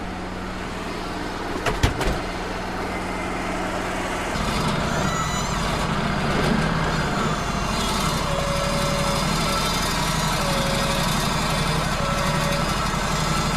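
Wood-Mizer LT35 portable sawmill's engine running steadily, with two sharp clicks about two seconds in and a step up to a louder, busier running about four seconds in.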